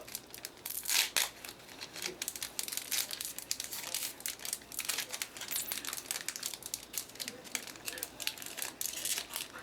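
Foil booster pack wrapper being torn open and crinkled, a continuous run of irregular crackles and snaps.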